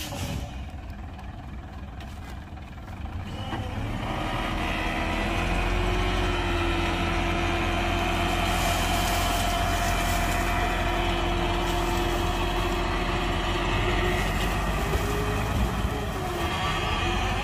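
Heavy dump truck engine running. It speeds up about four seconds in and holds at raised revs with a steady whine on top, then eases off near the end.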